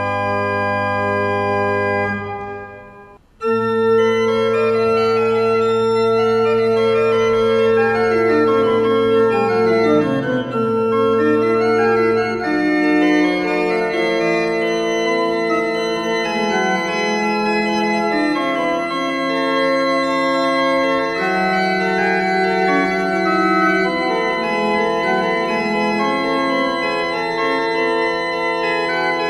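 Background music of slow, held organ chords. It fades out about two seconds in, a new chord enters about a second later, and quick runs of notes rise and fall across the held tones.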